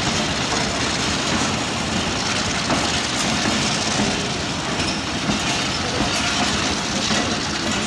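Passenger train coaches rolling past close by: a steady rumble of steel wheels on the rails, with occasional clacks over the rail joints.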